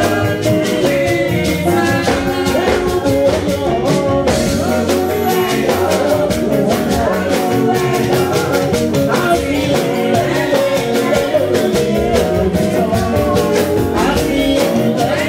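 Music with singing and a steady drum beat.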